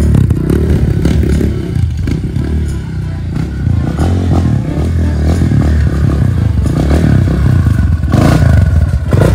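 Dirt bike engine running and revving unevenly as the bike is ridden, its revs rising and falling. The engine was soaked with water in a wash, and the owner fears it is nearly ruined.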